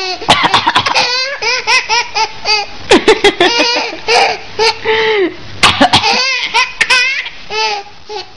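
Baby laughing in repeated high-pitched bursts with breathy catches between them, a little quieter near the end.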